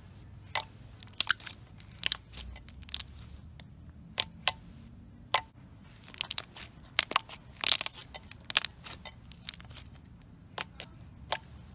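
Thick, stretchy chewy-texture slime being squeezed and folded by hand, giving off irregular sharp clicks and pops, some in quick clusters.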